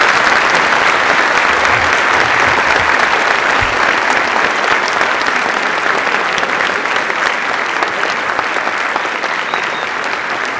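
Large audience applauding steadily, the clapping easing off slightly toward the end.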